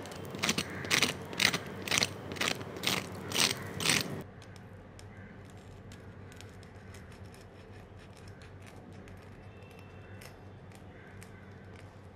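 A fork pressing again and again into the crisp semolina crust of a deep-fried chicken roll, about two sharp crunches a second, around eight in all: the sound of a well-fried, crispy coating. About four seconds in this stops suddenly, leaving only faint crackles as a knife cuts through a roll.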